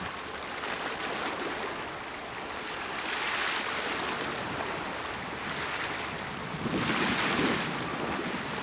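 Steady rush of wind and water lapping, swelling louder twice, about three and about seven seconds in.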